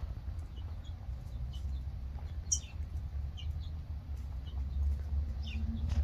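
Short, scattered bird chirps, one of them louder about halfway through, over a steady low rumble.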